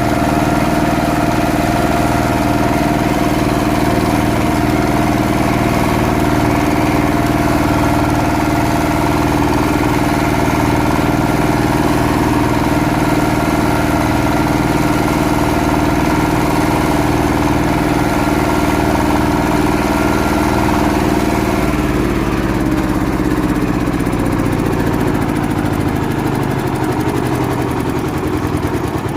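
Daedong 10-horsepower power tiller's single-cylinder diesel engine running at a steady speed. Over the last seven seconds or so its speed drops slowly and the pitch falls.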